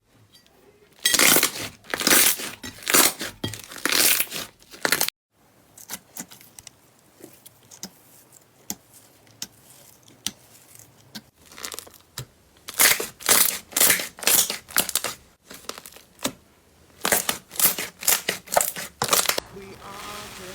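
Slime being squeezed and pulled by hand, giving runs of sharp crackling and popping: one in the first few seconds, then two more past the middle, with faint squishing between.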